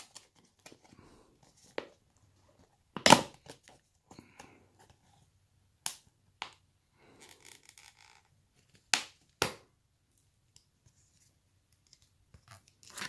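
Hands handling a plastic fruit fly culture tub: a few scattered sharp clicks and knocks of the plastic lid and container, the loudest about three seconds in, with faint rustling between.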